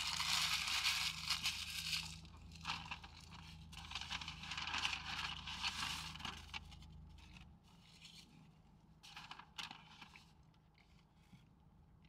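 Paper food wrapping crumpled in the hands and a paper takeout bag rustled, loudest in the first two seconds and again a few seconds later, then a few lighter rustles and clicks.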